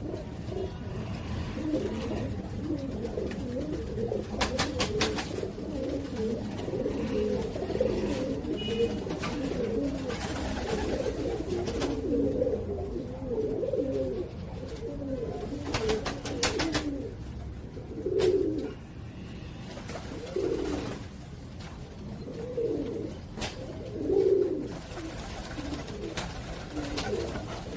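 Several domestic pigeons cooing over one another without a break, their low warbling coos swelling louder now and then. A few quick runs of sharp clicks come about four seconds in and again around sixteen seconds.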